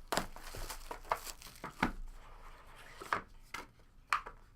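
A trading card box and its plastic wrapping being torn open and handled: irregular crinkling and tearing with scattered sharp clicks.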